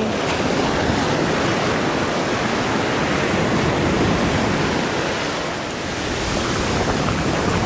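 Ocean surf breaking and washing up the beach: a steady rush of waves, easing a little near the end and then building again.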